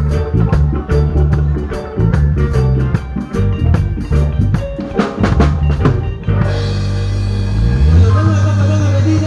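Band music with a drum kit and a pulsing bass line. About six seconds in, the drums stop, leaving held bass notes and chords, with a bass slide rising near the end.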